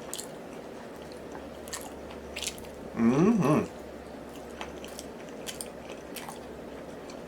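Close-miked eating of oxtail: scattered wet chewing, lip smacks and sucking clicks. About three seconds in comes a short, loud hummed vocal sound that slides up and down in pitch.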